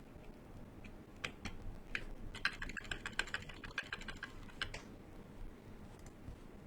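Typing on a KBD67 MkII custom mechanical keyboard with lubed Gateron Silent Ink switches and PBT keycaps: a few separate keystrokes, a fast run of typing in the middle, then a few more strokes before it tapers off.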